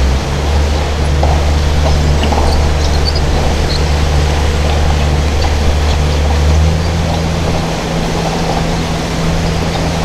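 Small boat's engine running steadily under a constant rushing hiss of water and air. Its low hum shifts about two-thirds of the way through as the engine note changes.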